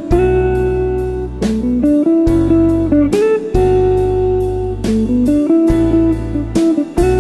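Smooth jazz instrumental recording: electric guitar playing over keyboard chords, long low bass notes and drums with regular hits.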